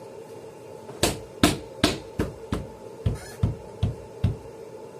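About nine sharp knocks in quick succession, two to three a second, starting about a second in and stopping a little past four seconds. The later knocks are duller and deeper.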